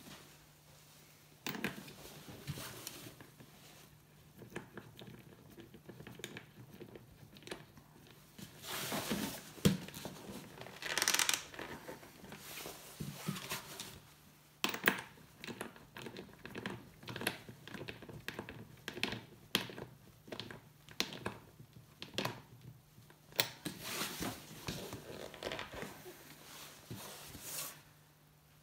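Hands fitting a rubber tie-down strap around a plastic ventilation-duct tube: irregular rustling, scraping and short clicks of rubber and hard plastic being handled, over a faint steady hum.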